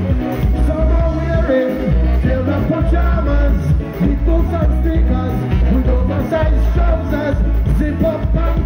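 Live calypso band playing loudly over the PA, with a heavy bass line, brass horns and a singer.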